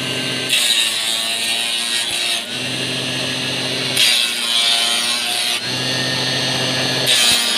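Motor-driven wood-turning machine running as wooden sticks are fed through its cutter to round them into flag-pole handles. There are three loud cutting passes of one to two seconds each, starting about half a second in, about four seconds in and about seven seconds in. Between them the motor hums steadily with no load.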